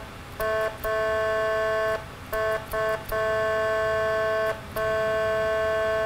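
Whelen PAP112 electronic air horn tone: a steady, two-note horn blast sounded in a run of short and long blasts, about six in all, as the push-button is pressed and released.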